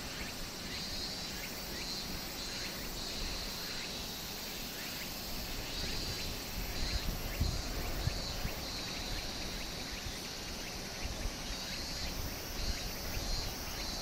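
Summer insects buzzing in a high band that swells and fades every second or two, over a steady low rumble with short low thumps that become more frequent about halfway through.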